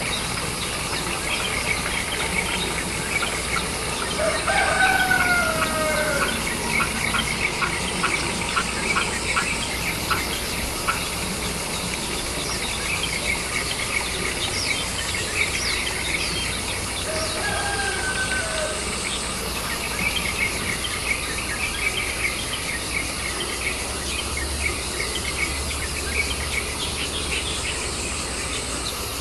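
Small birds chirping busily and continuously, with a rooster crowing twice: about five seconds in, and again shorter near the eighteen-second mark.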